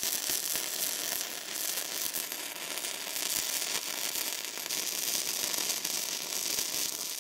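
Gasless flux-core MIG welding arc laying a bead on steel: a steady, dense crackle with a constant spatter of small pops.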